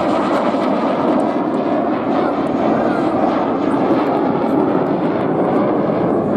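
Dassault-Dornier Alpha Jet in flight, its twin Larzac turbofan engines making a loud, steady jet noise.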